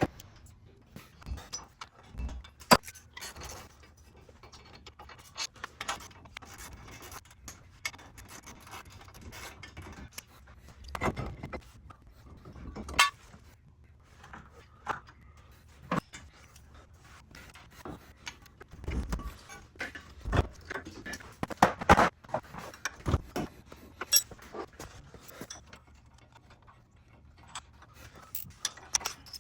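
Scattered metallic clinks, clicks and knocks of hand tools and parts being handled, with a loud cluster of knocks in the second half.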